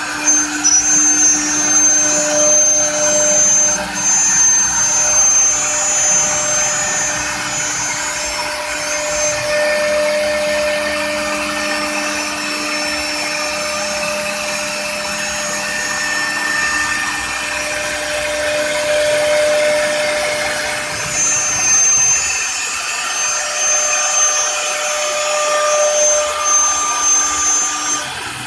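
COMEID 1325 CNC router's air-cooled spindle running and milling wood: a steady machine whine over the rushing noise of the cut. A high whine is strong for the first third and again near the end.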